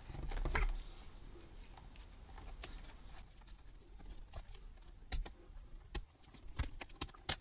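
Quiet, scattered small clicks and taps of fingers and plastic as the display cable connector of a Lenovo G50-30 laptop is worked loose from the back of its LCD panel, with a soft rustle at the start.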